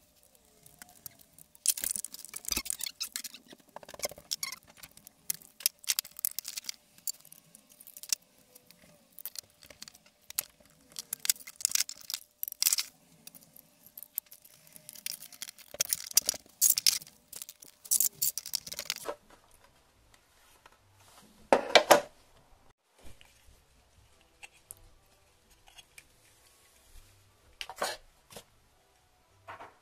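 Plastic pieces of a Tech Deck Pyramid Point fingerboard ramp kit being handled and fitted together on a wooden table: a run of small clicks, rattles and rustling, busy for most of the first two-thirds and sparser after. One louder clatter comes about three-quarters of the way through.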